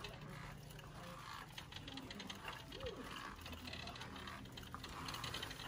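Shopping cart being pushed along, its wheels rattling with rapid light clicks.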